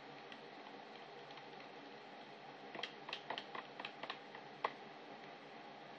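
Light clicks and taps of a spoon working in a plastic measuring jug of soap batter, a handful of them bunched together from about three to five seconds in, over the steady hum of an electric fan.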